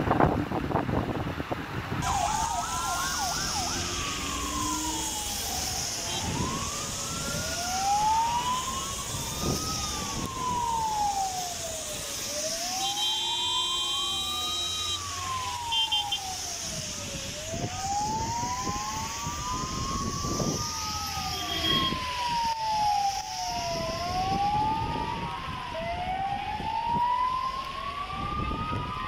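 Emergency vehicle sirens wailing in slow rising and falling sweeps, two of them overlapping out of step, over a steady hiss. The sirens begin about two seconds in, after a brief rush of wind noise on the microphone.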